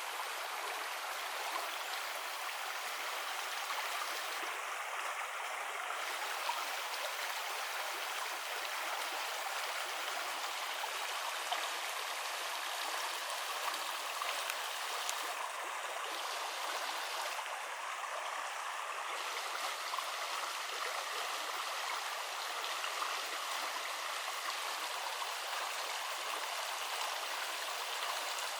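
Clear mountain river water flowing steadily, an even rushing of running water.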